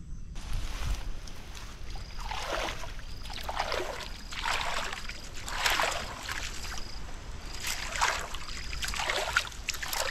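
Shallow floodwater among grass sloshing and splashing in a run of separate strokes, about one a second.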